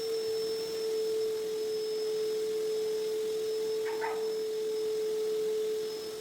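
A steady pure tone held at one pitch throughout, with a brief higher squeak about four seconds in.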